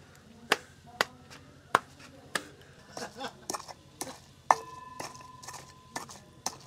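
Wooden pestle pounding chopped chillies in a metal mortar bowl: irregular knocks about twice a second, and after the hardest strike, about four and a half seconds in, the bowl rings briefly.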